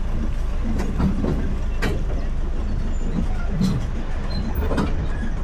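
Steady low rumble of a moving vehicle heard from aboard, with a few sharp knocks and rattles at irregular intervals.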